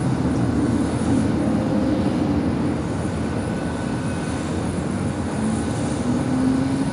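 USAF Thunderbirds F-16 fighter jet's engine at taxi power, heard across the airfield as a steady low rumble with a faint drifting whine.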